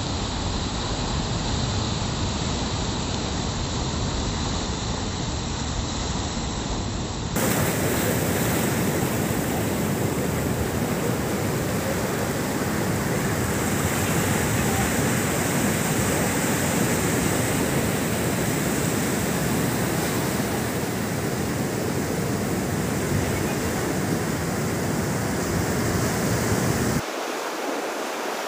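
Heavy surf breaking and washing over a rocky shore: a steady rush of churning seawater. The sound turns abruptly brighter and louder about seven seconds in, and loses its low rumble near the end.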